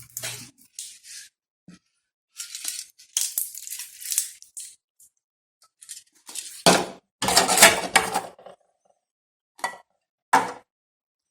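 Scattered handling noises: short light clinks and rustles with silent gaps between them, and a couple of heavier bumps about seven seconds in.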